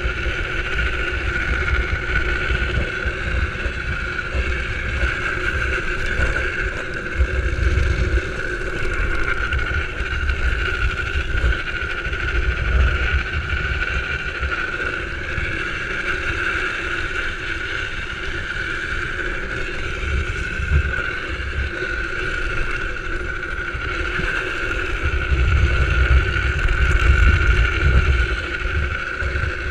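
Drift trike rolling fast downhill on asphalt: a steady rolling noise from its wheels with a constant whine, and wind buffeting the microphone in gusts, strongest near the end.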